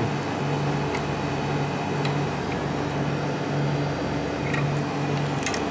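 Refrigeration condensing-unit fans running with a steady whir, under a low hum that swells and fades about once a second. The compressor itself is stopped, most likely tripped on its internal thermal overload.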